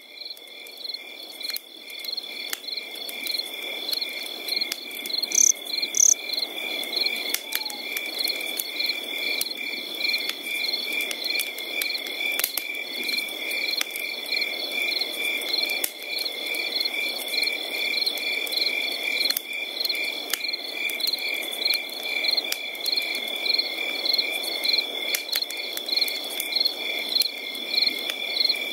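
Chorus of chirping insects: one steady high trill with chirps repeating at a quick, even rhythm, over a low even hiss. It fades in over the first few seconds.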